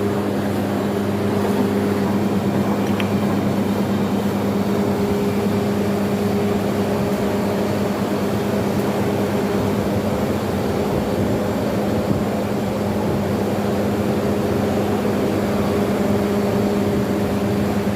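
Milking machine's vacuum pump running with a steady, unchanging hum.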